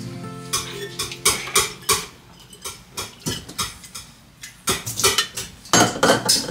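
Dishes clinking and knocking as a glass coffee carafe and a pour-over dripper are handled, with a quick cluster of knocks near the end.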